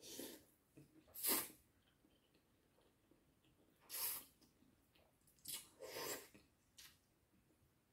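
Noodles being slurped from a bowl: about five short, airy sucking slurps, the loudest a little over a second in and around four seconds in.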